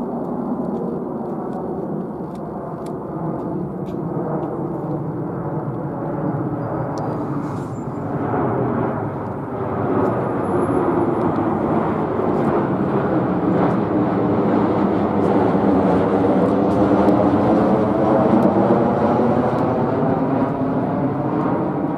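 Boeing 737-800 airliner's CFM56-7B turbofan engines passing low overhead on approach with the landing gear down: a steady rushing jet noise that grows louder through the second half as the aircraft goes over. Its tone sweeps slowly up and down as it passes.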